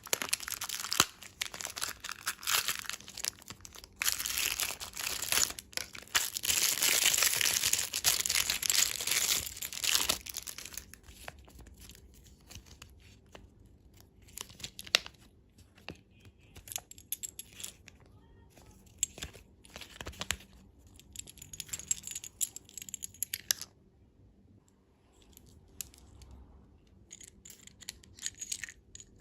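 Candy packaging being torn open and crinkled by hand, loud and continuous for about the first ten seconds, then quieter scattered rustles and small taps.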